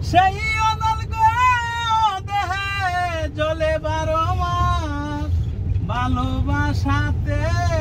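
A voice singing a Bangla song with long held, wavering notes, over the steady low rumble of the van's engine and tyres heard from inside the cabin.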